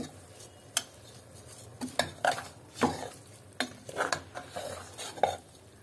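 Metal spoon stirring soaked rice and vegetables in a pan, with irregular scrapes and knocks of the spoon against the pan.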